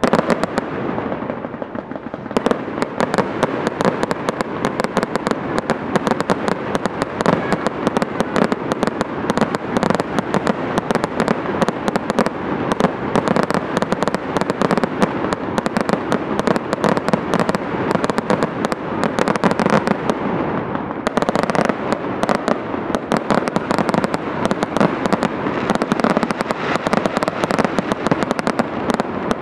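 Fireworks display: a dense, unbroken barrage of rapid bangs and crackling from shells and comets fired in quick succession. It starts abruptly, and a sharper, brighter volley comes in about 21 seconds in.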